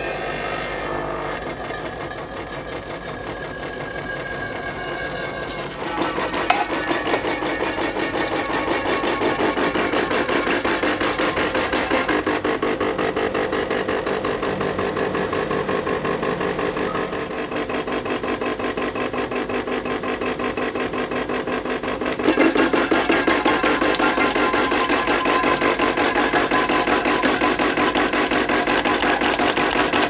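DeLonghi Dedica EC685's vibratory pump buzzing with a fast, even pulsing as it pushes descaling rinse water out through the steam wand into a stainless steel jug. The buzz steps up in loudness about six seconds in, dips briefly, then rises again at about twenty-two seconds.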